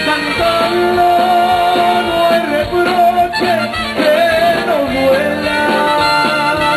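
Live Tejano band music: an instrumental passage with a held, slightly wavering melody line over a steady beat.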